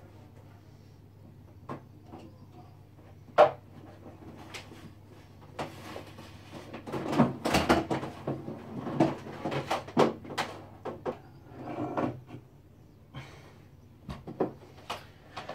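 Knocks, bumps and clatter of objects being handled and moved around a room, with one sharp knock a few seconds in and a busier stretch of clattering in the middle, over a steady low hum.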